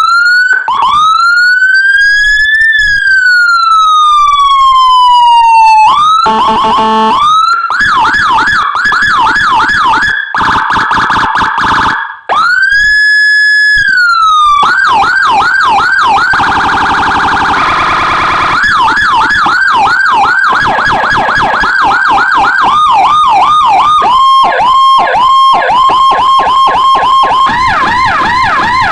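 Electronic police siren: a CJB 100 W siren module through a horn speaker, voiced like a Whelen HHS3200, stepping through its tones. First comes one slow wail that rises and then falls. Fast repeated yelp sweeps follow, then a brief steady high tone, a rapid warble, more yelps and short quick sweeps near the end.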